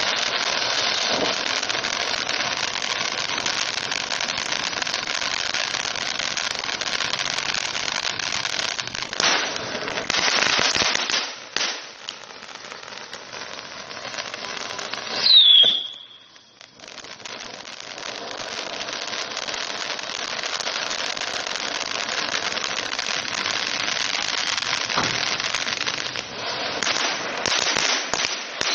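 Train-shaped toy firework spraying silver sparks with a steady hiss, broken by a few sharp pops. About fifteen seconds in, a short whistle falls in pitch, then after a brief lull the hissing spray starts again.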